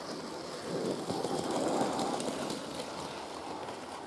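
OO gauge model steam locomotive and its vans running past close by, the motor's hum and the wheels on the rails growing louder to a peak about a second and a half in and then easing off, with light clicks of wheels over the track.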